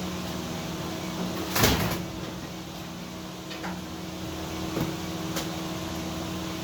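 A steady machine hum, with one sharp knock about a second and a half in and a few lighter clicks after it.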